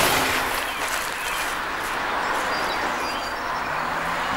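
Steady hiss of outdoor background noise with no distinct events, easing off a little over the first second.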